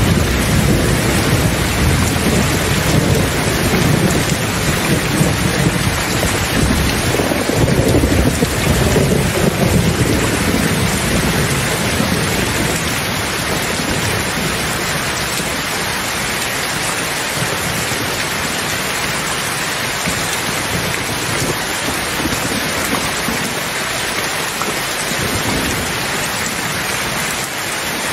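Steady heavy rain with a long roll of thunder rumbling through roughly the first ten seconds, then fading away to leave the rain alone.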